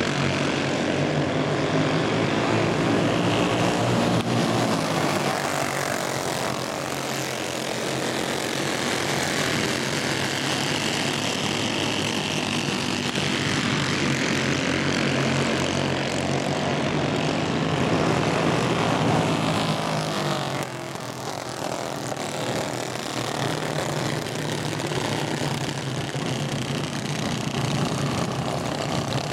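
Several racing go-kart engines buzzing at high revs, swelling and fading in pitch as the karts come round; the sound eases slightly about twenty seconds in.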